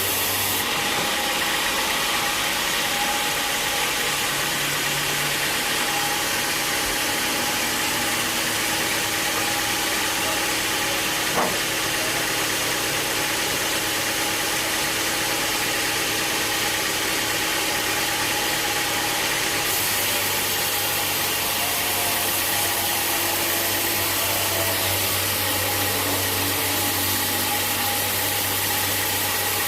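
Sawmill machinery running steadily: an engine with a constant loud hiss. The sound shifts abruptly near the start and about two-thirds of the way through, and there is a single sharp click about eleven seconds in.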